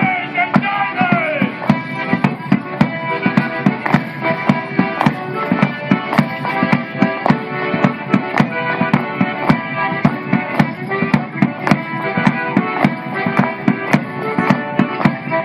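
Live traditional folk tune played for morris dancing, with a steady beat of sharp knocks, roughly three to four a second. A falling sweep in pitch comes about a second in.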